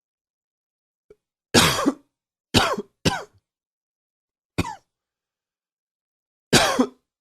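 A man coughing, a smoker's cough: five separate coughs, two of them close together around three seconds in, a shorter one near the middle and a longer one near the end.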